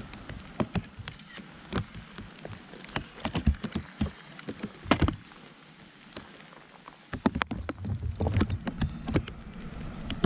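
Water splashing and sloshing, with irregular sharp knocks and clicks; a heavier low rumble comes in about seven seconds in.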